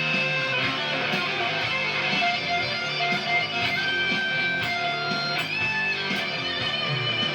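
Gibson Les Paul electric guitar through a Le Revenant fuzz pedal and a Fender Hot Rod Deluxe amp, playing a line of held, sustaining notes that change about once a second over lower chord playing.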